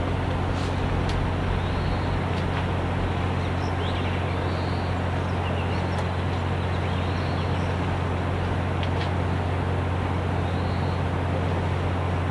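Steady low engine drone with a constant hum: harbour ship engines, the tugs and the carrier's machinery, running evenly.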